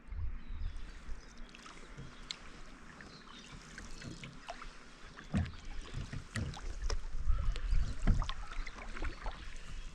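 Canoe paddling: the paddle dipping and pulling through calm water, with splashes, drips and light knocks, the strokes louder in the second half.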